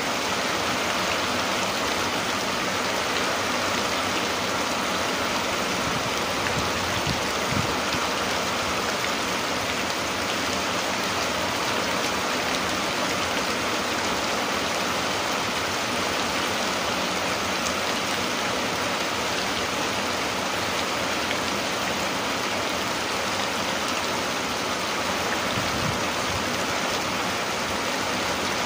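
Steady rain falling, an even hiss that never lets up.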